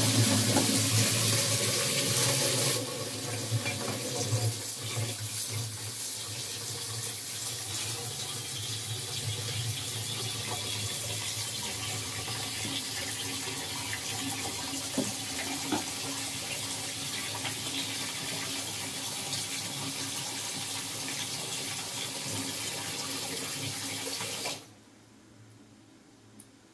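Water running from a kitchen tap into a stainless steel sink, heavier for the first few seconds and then a steady flow that stops abruptly near the end. A couple of short knocks come about halfway through.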